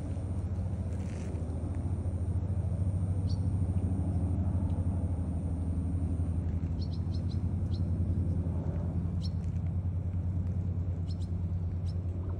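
A steady low engine-like rumble with a fast, even pulse, and short high bird chirps in small clusters a few times.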